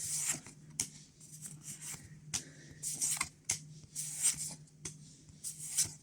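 Pokémon trading cards being slid and flicked through by hand from an opened booster pack: a run of short, irregular papery rustles and light snaps, over a faint steady low hum.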